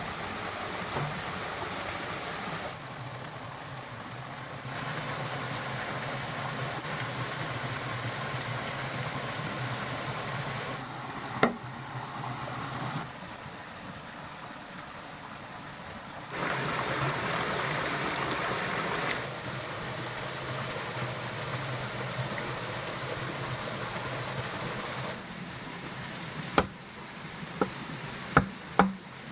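Flowing stream running steadily, its sound changing abruptly at several cuts. Near the end, several sharp knocks of a blade chopping into green bamboo.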